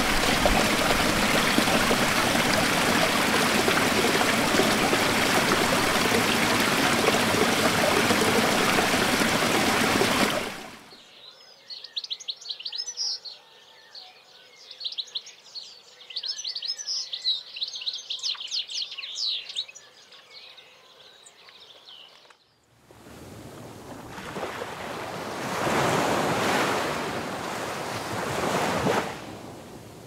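Water from a small waterfall pouring over rocks and splashing into a pool, a steady rush that cuts off about ten seconds in. Songbirds then chirp rapidly for about eleven seconds, until waves washing onto a sandy beach take over, swelling and falling back.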